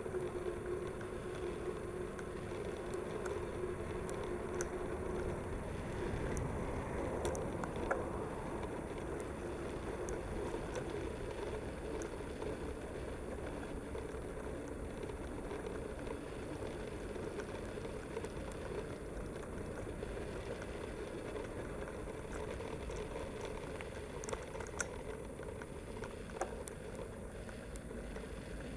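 Mountain bike rolling along paved paths, heard from a camera on the bike's mount: steady rolling and rattling noise with a few sharp clicks, and a steady hum for the first five seconds or so.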